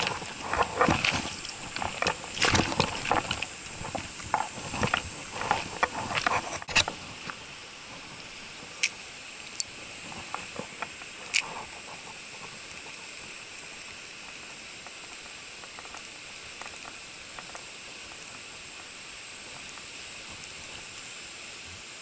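Steady rush of a shallow mountain stream running over stones. A burst of knocks and rattles fills the first seven seconds, and a few sharp clicks follow a little later.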